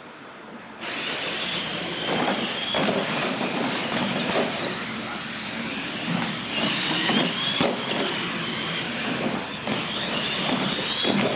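R/C monster trucks racing: the whine of their motors and gears starts suddenly about a second in and rises and falls with the throttle, mixed with knocks and clatter as the trucks hit the launch ramps and land.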